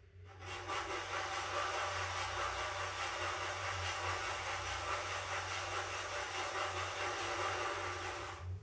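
Tool scraping clay on a mug turning on an electric pottery wheel: a steady dry scraping that starts just after the beginning and cuts off sharply near the end, over a low steady hum.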